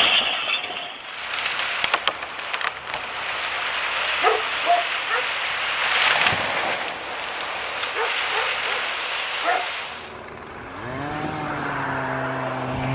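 A steady rushing hiss, like rain or wind, with scattered sharp cracks and clicks. Near the end an engine rises in pitch and settles into a steady run.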